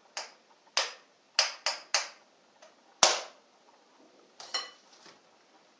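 A kitchen knife tapping sharply on a ceramic bowl: about eight short irregular knocks, the loudest about three seconds in. One knock rings briefly.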